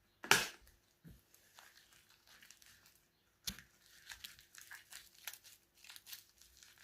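Sticky slime made with foam clay being kneaded and pulled apart by hand, giving soft crackling and tearing noises that grow busier in the second half. A louder short rustling burst comes just after the start and another about halfway through.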